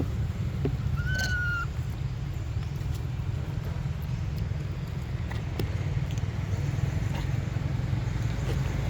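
A monkey gives one short, high squeak about a second in, over a steady low rumble, with a few faint clicks.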